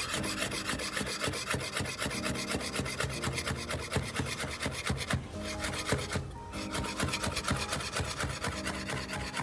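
Chef's knife rapidly slicing rolled basil leaves into thin strips on a cutting board: a fast, even run of blade taps on the board, with brief pauses about five and six seconds in.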